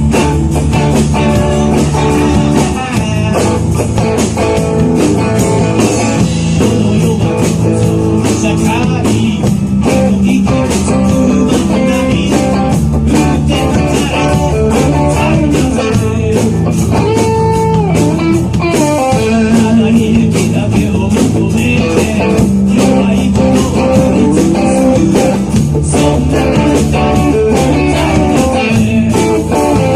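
A live rock band (electric guitar, bass guitar and drums) playing a blues-tinged rock song loudly, with the guitar's bending melodic lines prominent over a steady drum beat.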